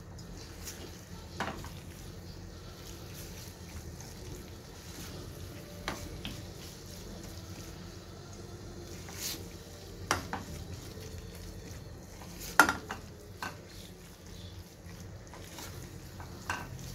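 Thick chicken, corn and capsicum filling sizzling in a stainless-steel pan over a high gas flame while a spatula stirs and scrapes through it, with occasional knocks of the spatula on the pan, the loudest about twelve seconds in. The filling is being fried to cook off the raw flour and ginger-garlic smell.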